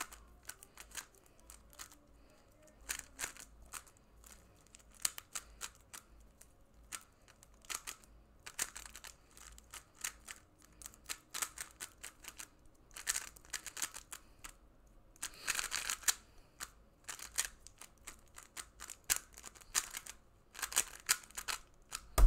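A 3x3 speedcube turned rapidly in the hands during a timed solve: quick plastic clicks and clacks of layers turning, in bursts with short pauses between.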